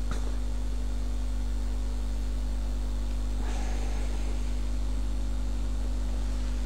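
Steady low electrical mains hum, a constant drone with its overtones running unchanged. A brief soft burst of noise comes about halfway through.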